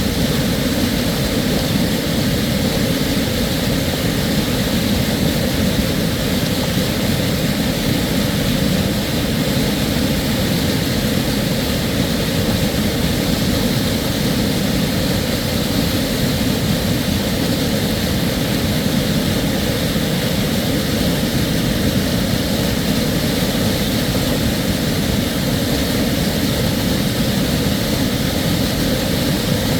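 Mountain creek cascade: water pouring over rock ledges in a steady, unbroken roar, heaviest in the low end.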